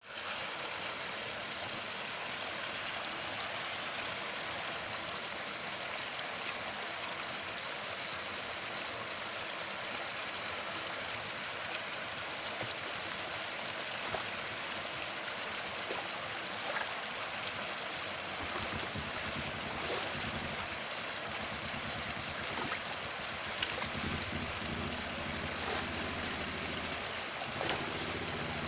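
Steady rushing of water in a canal, with a few faint ticks over it. From about two-thirds in, a lower rumble joins.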